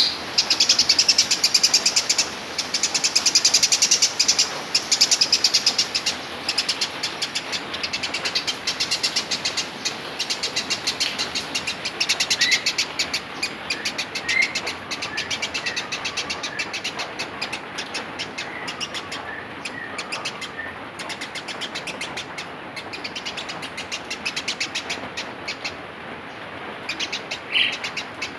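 Female Eurasian tree sparrow chattering: a fast, unbroken run of short, sharp chirps, several a second, loudest in the first few seconds and then a little softer.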